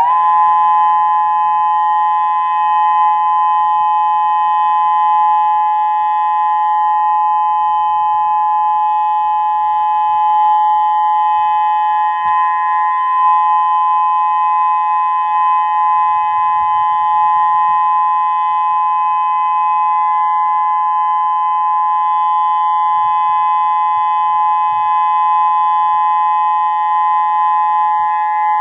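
Outdoor civil defense warning siren on a nearby tower, loud, sounding its steady tone for the monthly test: two close pitches held level without rising or falling.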